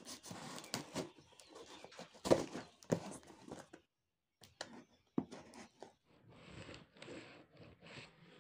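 Knife slitting and scraping along packing tape on a cardboard box, with the plastic tape crinkling and pulling away from the cardboard. Irregular scratchy rasps with a few sharp knocks, the loudest two a couple of seconds in, and a short pause partway through.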